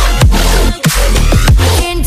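Electronic dance music in the dubstep style, with heavy bass, falling synth sweeps and a steady drum beat.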